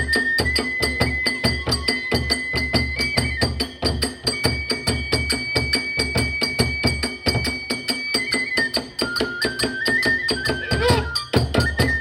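Kagura music: a drum and hand cymbals play a fast, even beat of about five strokes a second, while a bamboo flute holds long high notes over it.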